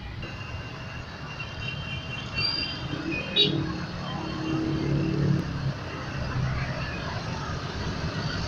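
HBU-20 diesel-electric locomotive approaching, its engine a low steady rumble that grows slowly louder.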